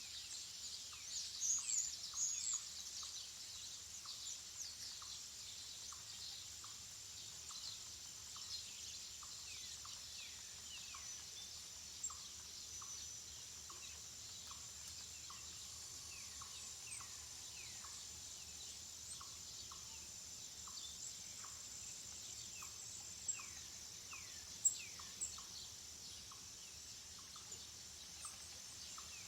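Birds chirping outdoors: many short, quick falling calls over a steady high-pitched buzz. A few louder chirps come about two seconds in and again near the end.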